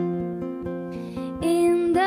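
Acoustic guitar picked note by note, the notes left ringing, with an audible breath in about a second in; a woman's singing voice comes back in over the guitar just after halfway.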